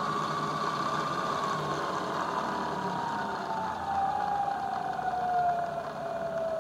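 Lagun vertical milling machine's spindle and variable-speed drive running with a steady whine. About two seconds in the whine starts sliding down in pitch as the speed is cranked down toward about 100 RPM for drilling into steel.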